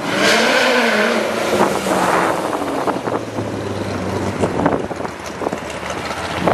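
Chevrolet C6 Corvette's V8 exhaust accelerating hard past, starting loud all at once, its note rising and dipping in the first second and then running on steadier as the car pulls away.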